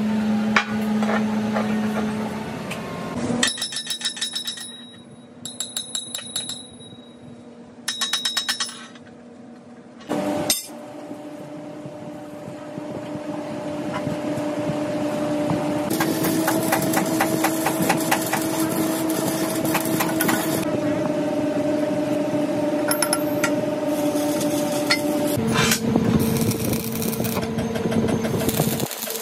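Metalworking sounds: sharp, ringing metallic clinks and taps as steel rings are handled and fitted into a welded steel base, over a steady hum whose pitch shifts a few times. In the second half, a crackling stick-welding arc.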